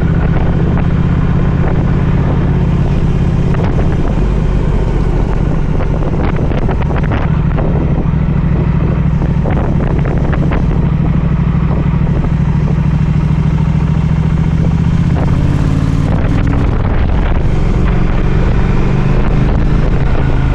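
Motorcycle engine running at a steady cruise under wind buffeting the microphone; about fifteen seconds in the engine note shifts as the revs change.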